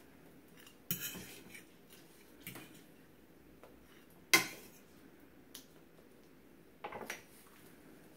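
Metal fork clinking and scraping against a frying pan and a plastic cutting board while strips of cooked turkey bacon are lifted out: a handful of separate clinks and clacks, the sharpest a little over four seconds in.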